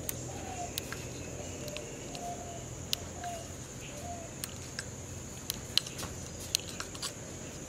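Sharp, irregularly spaced clicks of a Honda XR250 Motard's front fork adjuster being turned clockwise with a screwdriver toward its seated position. Behind them runs a steady high insect drone, with a few short bird chirps in the first half.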